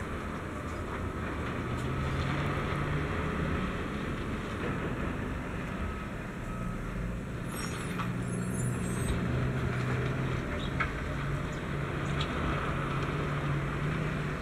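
Diesel engine of a Tatra 815 dump truck running as the truck drives slowly, its note rising and falling, mixed with a wheel loader's engine. A brief high squeal sounds about halfway through.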